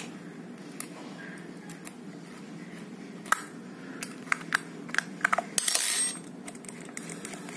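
Scattered small metallic clicks and taps of a hex key on the screws and body of a replica Keihin Sudco carburetor being taken apart by hand, with a brief rustle a little before the end.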